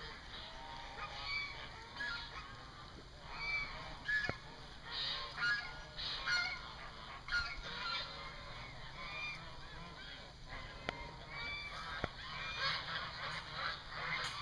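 A flock of domestic geese honking, many short overlapping calls one after another.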